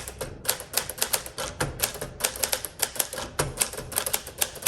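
1959 Smith-Corona Sterling manual portable typewriter being typed on: a quick, uneven run of sharp key and typebar strikes, several a second.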